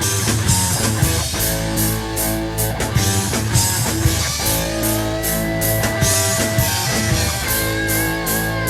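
Instrumental rock band music from a late-1970s recording: guitars and bass over a drum kit keeping a steady beat, with a long held high note entering about five seconds in.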